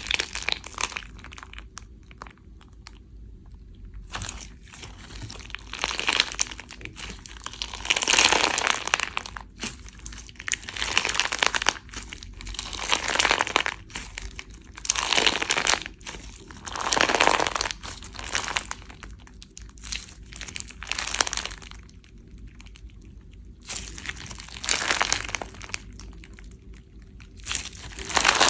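Slime being squeezed and pressed by hand close to the microphone, giving repeated bursts of crackling pops with short pauses between them.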